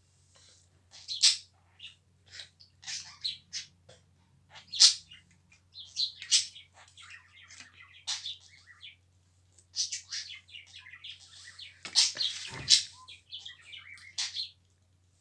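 Pet bird chirping and squawking in many short, high calls while playing, with a denser, louder run of calls about twelve seconds in.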